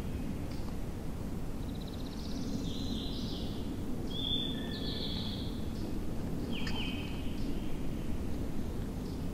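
Small songbirds singing a few short, high phrases: a buzzy trill, then a couple of clear notes, then a falling phrase, over a steady low outdoor rumble.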